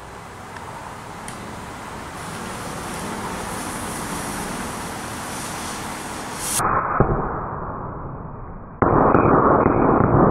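Lit firework fuse hissing, then about nine seconds in the firework goes off with a loud, dense rushing noise that keeps going.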